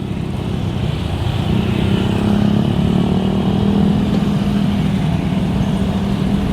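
Road vehicle engines, motorcycles and cars, running in a steady low rumble with an engine hum, growing louder over the first two seconds.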